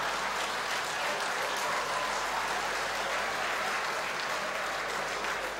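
Seated theatre audience applauding steadily, a dense sustained clapping.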